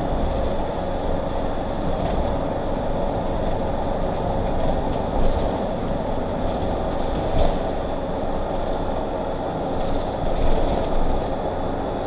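Steady road noise inside a diesel motorhome's cab at highway speed: engine drone and tyre noise, with a faint steady hum and a few light clicks.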